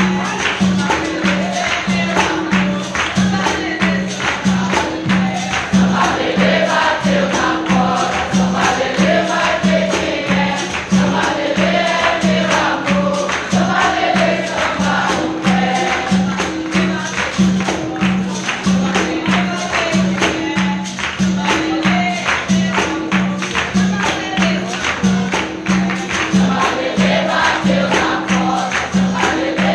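Capoeira roda music: berimbaus and a pandeiro keep a steady repeating beat under a group singing together.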